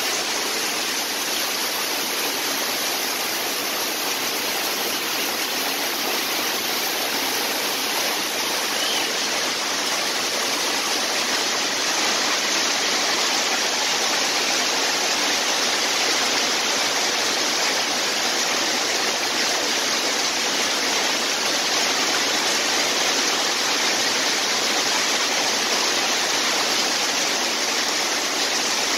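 Heavy rain pouring down steadily, a dense even rush of water, getting slightly louder about halfway through.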